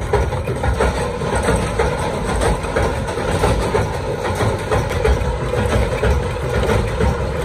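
Screw-shell forming machine running steadily: a continuous rapid mechanical clatter of many small strikes over a low rumble.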